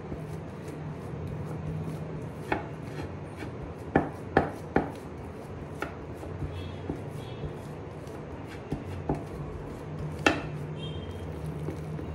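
Hands pressing and patting warm dough flat on an oiled steel plate, with several sharp taps against the metal: a quick run of three about four seconds in and another about ten seconds in. A steady low hum runs underneath.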